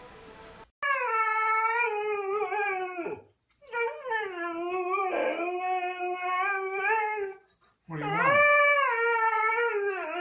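A husky howling: three long, wavering calls with short breaths between, starting just under a second in.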